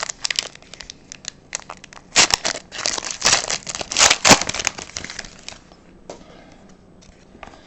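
A trading-card pack wrapper being torn open and crinkled: a run of crackles with the loudest bursts between about two and four and a half seconds in, dying away after about five and a half seconds.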